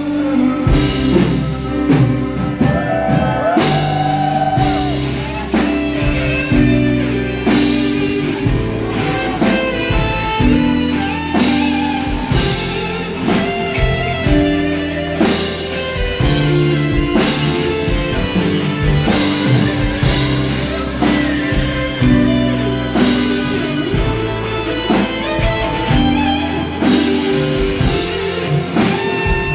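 Live rock band playing an instrumental interlude: electric guitar lead with bending notes over drum kit and bass, with a regular beat.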